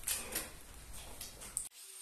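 A few short scrapes and knocks as a cut porcelain wall-tile piece is handled on a stack of tile boxes. About one and a half seconds in, the sound cuts off abruptly and a faint steady high hum remains.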